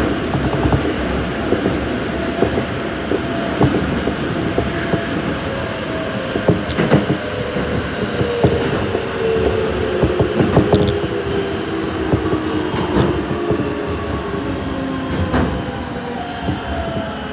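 Keikyu 1500 series train running in a subway tunnel, heard from inside the car: rumble and wheel clatter over rail joints, with the Toyo GTO-VVVF inverter tones falling in pitch through the second half as the train slows.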